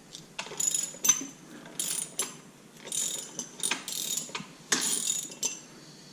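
Ratchet wrench on the crankshaft nut clicking in about six short bursts as the engine is turned over by hand.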